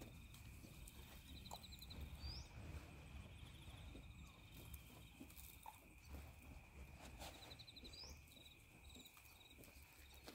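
Faint outdoor ambience: small birds give short chirping trills and a couple of quick rising chirps over a steady high insect hum, with a low wind rumble underneath.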